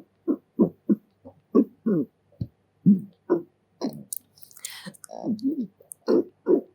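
A person burping in a rapid string of short, low burps, about three a second, with a brief breathy hiss about two-thirds of the way through.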